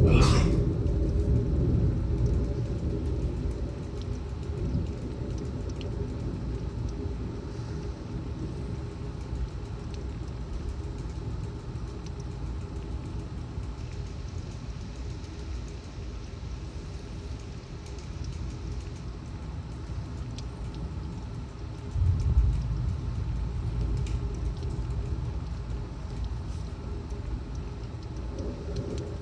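Thunder rumbling and fading away over the first few seconds, over steady torrential rain. About 22 seconds in, another low roll of thunder starts suddenly and dies down slowly.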